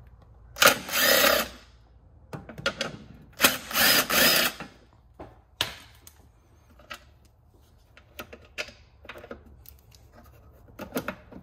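Power ratchet running in two bursts of about a second each, backing out two 10 mm bolts, followed by scattered light clicks and knocks of handling the loosened parts.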